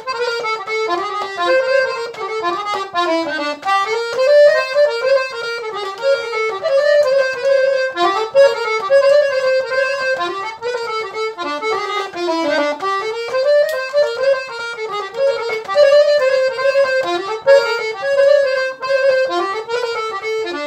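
Piano accordion playing a Romanian horă rară in G minor: a melody with many quick ornaments and turns.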